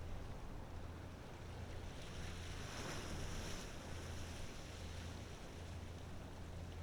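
Low, steady drone of a large ferry's diesel engines across the water, pulsing slightly, over a wash of waves, with a louder rush of water about three seconds in.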